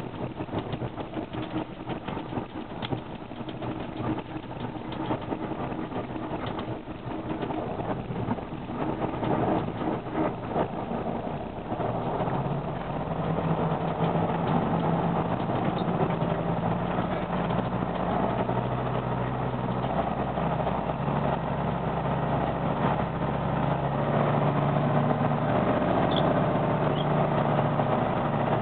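Tatra 815 dump truck's diesel engine running as the truck drives over a rough, muddy rubble track, heard from inside the cab. The engine grows louder about twelve seconds in and stays so.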